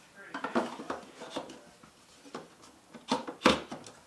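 Plastic refrigerator shelf being fitted back into place: a string of light clicks and knocks as it is handled and seated, with two louder knocks a little after three seconds in.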